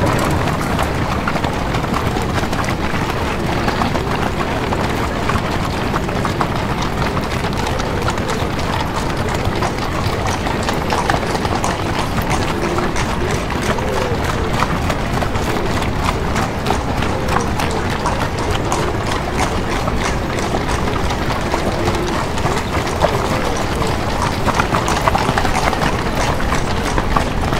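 Horses' hooves clip-clopping on a street as horse-drawn carriages pass, a continuous stream of hoof clicks over a steady murmur of street voices.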